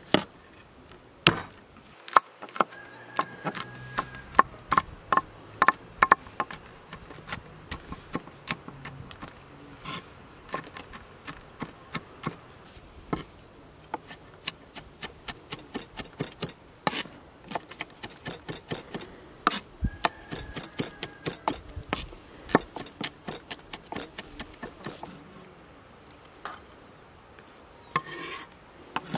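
Kitchen knife chopping garlic cloves on a wooden cutting board: a long run of sharp knocks of the blade striking the wood, several a second. The knocks stop a few seconds before the end, and a short scrape of the knife across the board follows near the end.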